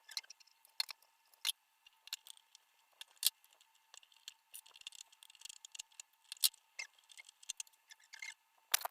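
Light, irregular clicks and taps of small plastic and metal kettle parts being handled, with a few sharper clicks standing out.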